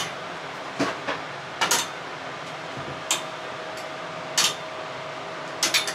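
Clothes hangers clicking and clinking onto a curtain rod, a series of sharp clicks at irregular intervals. Under them runs the steady hiss of a bathroom ventilation dryer blowing warm air.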